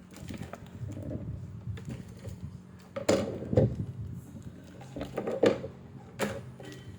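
Workbench handling noise: scattered sharp clicks and knocks, the loudest about three seconds in and again near five and a half and six seconds, as a multimeter is set up to test a capacitor on the control board.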